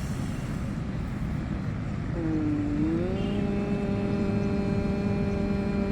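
Bhramari pranayama: one person humming a long, steady 'mmm' with closed lips. The hum starts about two seconds in, dips briefly in pitch, then settles on one held note.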